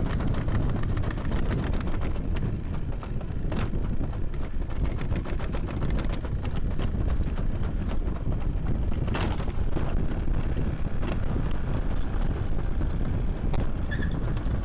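Summer toboggan sled running fast down a stainless-steel trough: a steady low rumble full of rapid rattling clicks, with a few louder knocks along the way.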